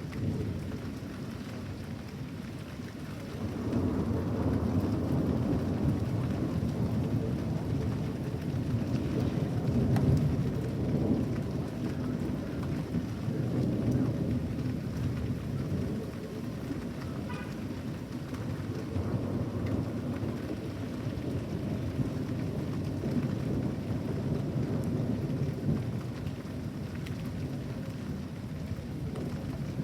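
Severe thunderstorm: a long, low rolling rumble of thunder over steady rain, swelling about three seconds in and rising and falling after that.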